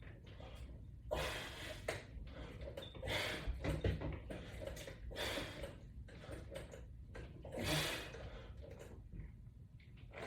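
A man breathing hard during resistance-band exercise: short, sharp breaths about every two seconds.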